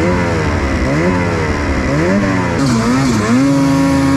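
Snowmobile engine revving up and down in quick repeated waves under a rider's throttle, then holding a steady pitch for the last second.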